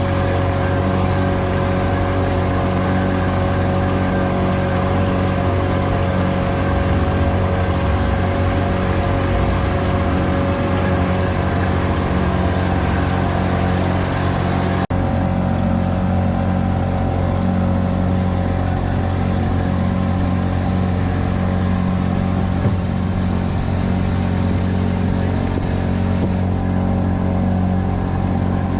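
Boat engine running steadily, a low drone with a constant hum; the sound breaks off for an instant about halfway through.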